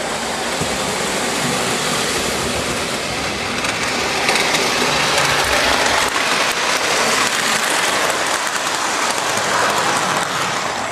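Lionel Hudson model steam locomotive and its cars running along O gauge model track: a steady rumbling hiss of wheels and motor that swells as the train passes close by.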